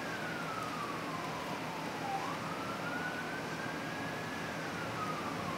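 Siren wailing: one pure tone sliding slowly down for about two seconds, back up until about four and a half seconds in, then down again.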